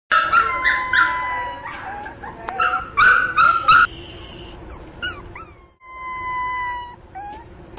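Miniature pinscher puppy crying for its mother: loud, high howling cries and long high-pitched whines through the first four seconds, then softer short whimpers and one long thin whine.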